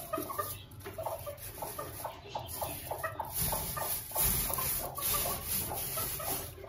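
Chicken clucking in a long run of short, quick notes, with straw rustling faintly as eggs are shifted by hand in the nest.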